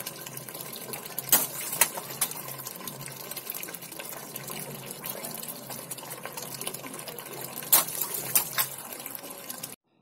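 Water running steadily from a drainpipe onto wet concrete, with a few sharp knocks or splashes about a second in and again near the end; the sound cuts off suddenly just before the end.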